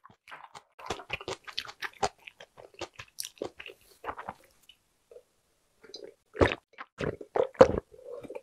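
Close-miked chewing of a last mouthful, with wet mouth clicks. Near the end come a few loud gulps as water is drunk from a glass.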